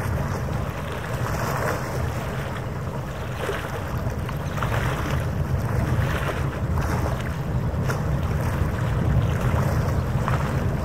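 Wind on the microphone over harbour water lapping in soft, irregular splashes every second or two, with a steady low rumble underneath.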